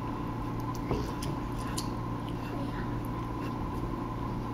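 Faint small clicks and soft wet eating sounds from a child eating noodles with their hands, with one slightly louder click about a second in, over a steady room hum.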